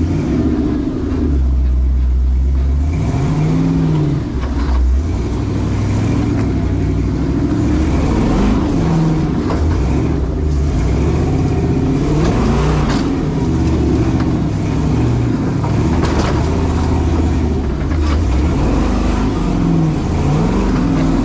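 Off-road crawler's engine running under load, revving up and falling back again several times as it works along the trail.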